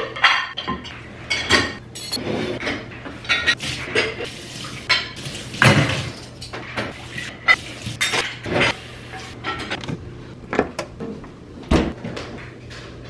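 Dishes and cutlery clinking and clattering as they are rinsed at a kitchen sink and loaded into a dishwasher, with a couple of heavier knocks.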